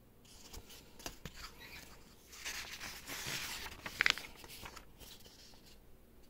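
Rustling and crinkling with light clicks as the set's paper and packaging are handled, with a short sharp squeak about four seconds in.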